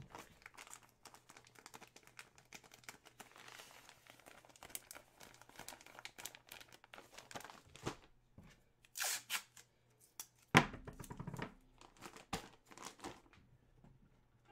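Plastic packaging crinkling and tearing as a hockey jersey is unwrapped, in irregular crackles with a sharp snap about ten seconds in.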